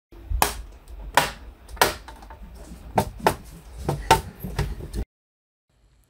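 Plastic retaining clips of a Lenovo ThinkPad E16's rear cover snapping apart one after another as the cover is worked off the laptop body: about seven sharp snaps in five seconds, with plastic handling noise between them.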